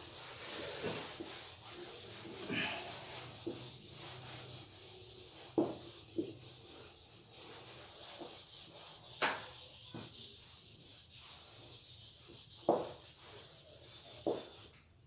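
A handheld whiteboard eraser rubbing back and forth across a whiteboard, wiping off marker writing, with a few sharp knocks along the way.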